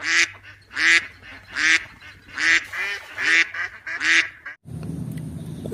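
White domestic duck quacking: about six loud quacks a little under a second apart, stopping about four and a half seconds in.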